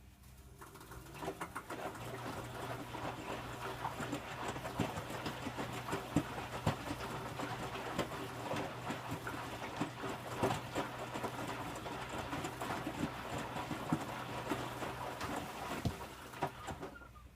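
Electrolux W455H commercial washing machine drum turning during the wash: a steady motor hum starts at the beginning, with the wet load tumbling and splashing in irregular knocks, then the motor winds down and stops near the end.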